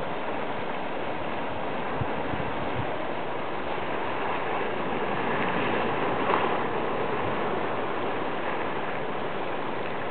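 Boiling hot-spring water churning and rushing, a steady hiss with a slight swell about six seconds in.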